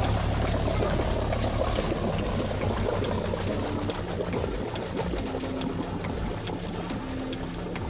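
Water churning and splashing around a Toyota Hilux pickup as it wades through deep river water, with a low engine rumble underneath that eases off after about three seconds.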